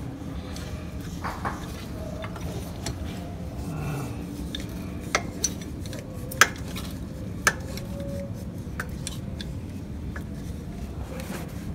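Scattered light clinks and knocks of handled hard objects, a few sharper ones between about five and seven and a half seconds in, over a steady low hum.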